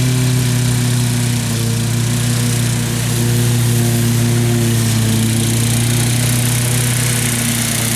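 Wolf-Garten ride-on mower's engine running steadily with a strong, even hum while the mower drives across the meadow cutting grass.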